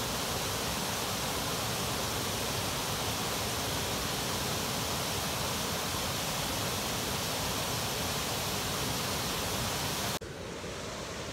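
A waterfall rushing steadily over a rock ledge into a pool, a dense, even wash of water noise. It cuts off abruptly near the end, leaving a quieter rushing sound.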